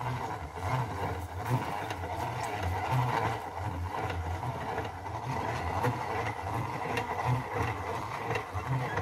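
Hand-cranked metal corn mill grinding soaked nixtamal corn into masa: a steady gritty grinding with an uneven low pulsing as the crank turns.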